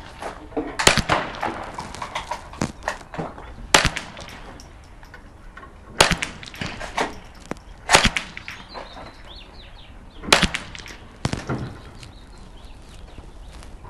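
Ruger 10/22 .22 rifle fitted with a muzzle brake firing single shots, about six sharp cracks a couple of seconds apart, with fainter cracks in between.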